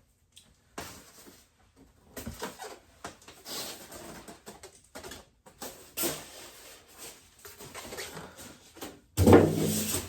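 Rummaging through a product box and its packaging: irregular rustling, scraping and light knocks, with a louder burst about nine seconds in.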